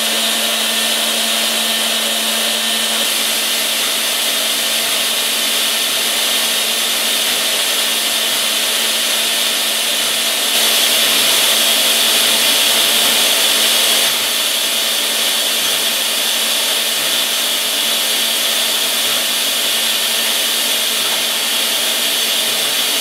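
Brother Speedio CNC machining center spindle spinning a small ball end mill at 27,000 rpm while milling a metal workpiece: a steady high-speed whine and cutting hiss. A low hum drops out about three seconds in, and the sound grows louder for a few seconds in the middle.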